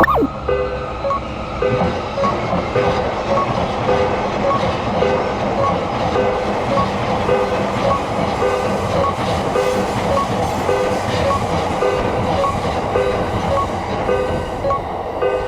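Japanese level-crossing alarm ringing, an even electronic ding about twice a second, while an electric train runs past with the rumble and clatter of its wheels on the rails.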